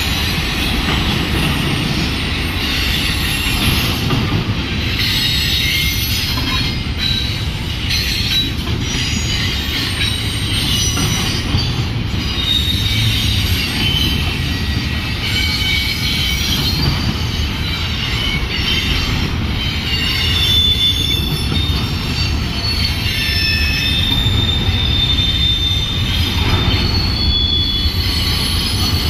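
A long Union Pacific freight train rolling past, its cars making a steady low rumble while the wheels give off many short, high squeals and screeches on and off.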